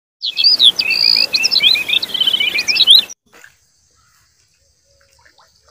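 Birds chirping in a fast, busy run of varied high calls for about three seconds, then cutting off abruptly into near silence.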